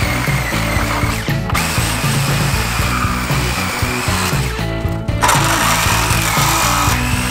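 Corded power saw cutting into old wooden stud framing, its motor whining steadily and dropping out briefly twice. Background music plays throughout.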